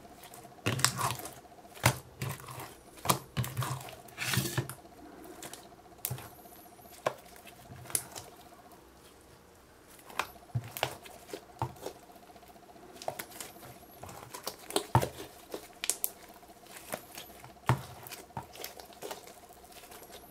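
Slime being pulled from a plastic cup and kneaded by hand: irregular sticky squelches, small pops and clicks as it stretches, tears and folds.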